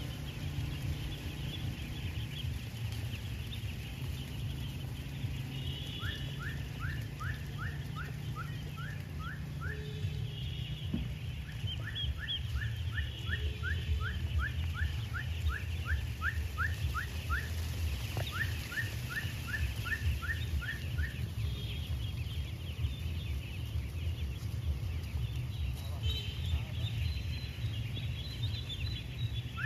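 A large flock of ducklings peeping all together, a dense chatter of many overlapping high calls. Runs of regular rising chirps, about three a second, come and go over a steady low rumble.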